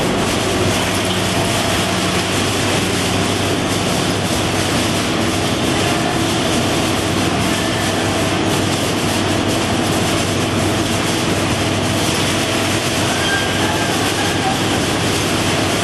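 Packing-line machinery of a green pepper sorter running: belt and roller conveyors carrying cardboard boxes, a loud, steady mechanical noise with a low hum underneath.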